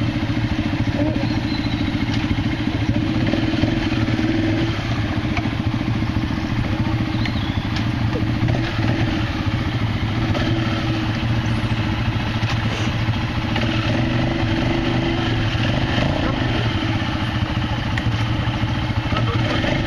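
Quad (ATV) engine running steadily at low speed as the machine is crept down a steep, rutted bank, its pitch rising and falling slightly.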